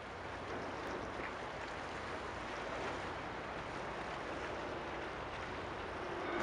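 Steady outdoor wash of wind and water at the shoreline. A louder low rumbling hum starts to build near the end.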